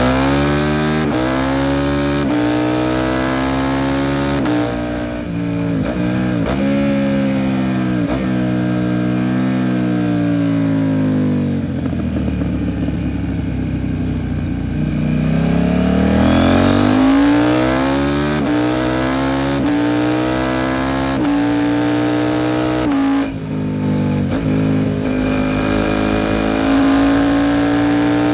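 KTM 790 Duke's parallel-twin engine through an Arrow Pro Race titanium exhaust, riding under load. It revs up and shifts through the gears several times. Around the middle the revs fall away over several seconds, then it pulls hard up through the gears again.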